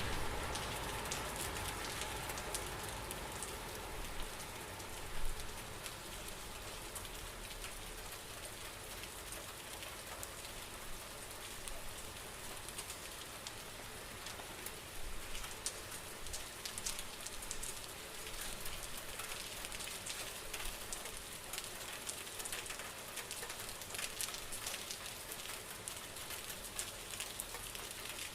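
Steady rain falling on a surface, with many small drops ticking through a soft even hiss. A low rumble fades away over the first few seconds.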